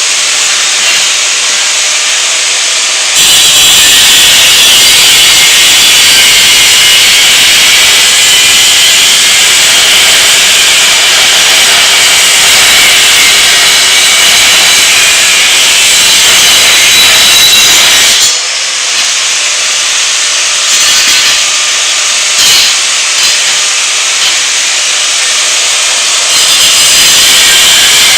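Power tool cutting steel mounting tabs off a car seat bracket, a loud continuous harsh grinding noise. It gets louder and harsher about three seconds in and eases off somewhat after about eighteen seconds.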